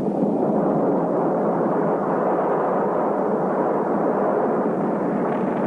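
Continuous, even roar of a large explosion's blast, a dense rushing rumble with nothing distinct standing out of it.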